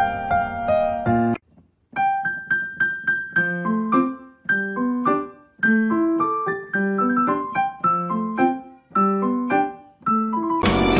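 Background piano music with single struck notes in a gentle melody. It cuts off a little over a second in, a new piano phrase starts half a second later, and near the end louder, fuller music takes over.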